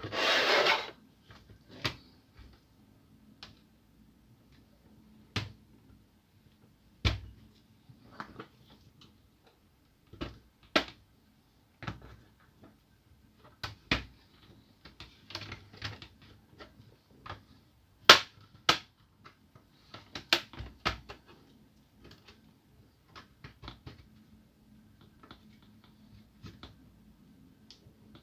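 Plastic snap clips of an Asus K53SD laptop's case clicking and popping loose one after another as a plastic pry tool is worked along the seam. The sharp clicks come at irregular intervals, the loudest about eighteen seconds in, after a brief scraping noise at the start.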